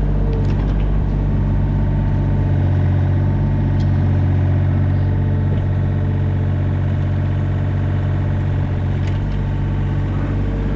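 Mini excavator's diesel engine running steadily as the machine digs a trench, with a higher whine at the start and again near the end.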